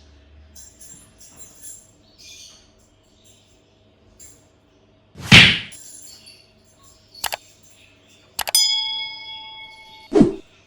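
A heavy thud, a sharp click, then an object struck and ringing with a clear bell-like tone for about a second and a half, and another thump near the end.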